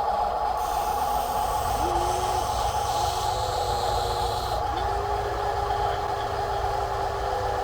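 Small electric motors of radio-controlled toy construction vehicles whining steadily, with a second, lower motor whine that starts and stops three times, bending in pitch as it spins up and down.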